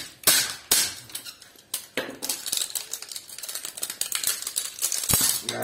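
Hammer tapping on a CRT television deflection coil and its ferrite core. There are sharp metallic clinks about twice a second at first, then a quicker run of lighter clinks and rattles, and one harder strike near the end.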